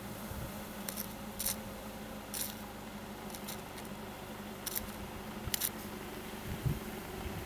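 Rhinoceros cropping twigs from a thorn bush: sharp snipping clicks about once a second, over a steady low hum.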